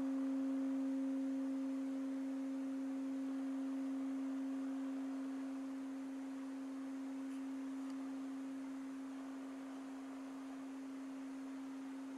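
Tibetan singing bowl ringing on with one steady low tone and a fainter higher overtone, slowly fading.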